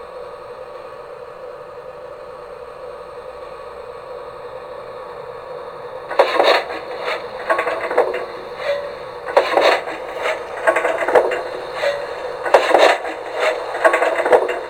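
G-scale LGB Forney locomotive fitted with an LGB 65001 American steam sound unit: a steady hum with a few held tones, then from about six seconds in a run of loud, unevenly spaced short bursts.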